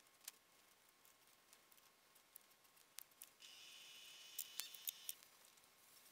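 Faint, distant whine of a cordless drill running for about a second and a half, just past the middle, among scattered light clicks and taps.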